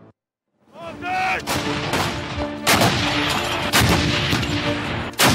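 Battle sounds: a string of gunshots and heavier blasts at irregular intervals, starting after a brief silence about a second in, over a steady tone and short high arching sounds.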